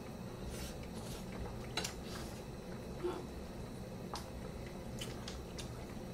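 A person chewing a mouthful of braised chicken: soft, wet mouth sounds with scattered light clicks, over a steady low hum.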